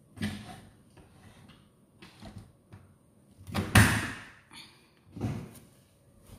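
Several separate knocks and thuds from someone working at a stainless steel kitchen sink, the loudest about four seconds in.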